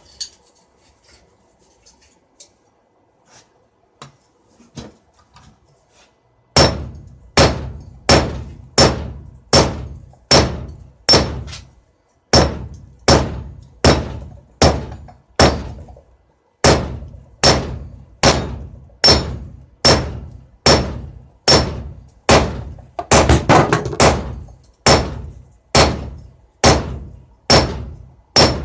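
Blacksmith's hammer forging steel on an anvil: after a quiet start with a few faint knocks, steady blows come about three every two seconds, each ringing briefly. There are two short pauses, and a quick flurry of lighter strikes about two-thirds of the way through.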